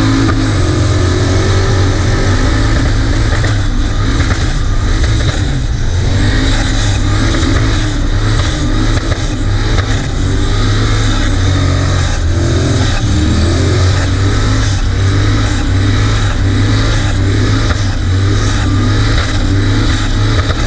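Turbocharged LS V8 engine of a Holden Commodore running loud and hard through a burnout, its revs wavering up and down, heard close over the open engine bay.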